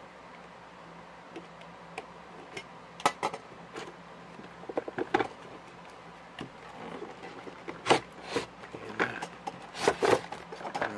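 Toy packaging being opened and handled: irregular clicks, knocks and scrapes of cardboard and plastic. They start about three seconds in and come more often towards the end.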